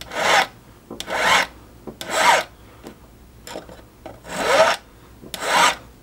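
Flat hand file stroking across the tail of a silver ring, about one stroke a second, each stroke a rasping scrape with a brief sliding squeal: the tail is being tapered down to blend into the band.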